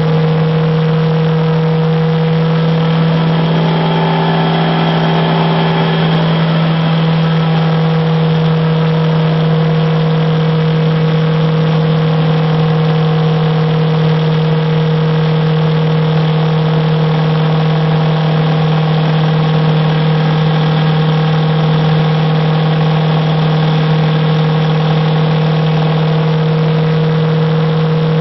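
An engine running at a steady, constant speed: one loud, even drone that holds the same pitch throughout.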